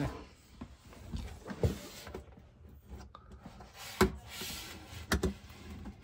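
Handling sounds: scattered light knocks and rubbing as a hand-held non-contact voltage tester is moved over a plastic dishwasher junction box on a wooden cabinet floor. The sharpest knock comes about four seconds in, with two more close together just past five seconds.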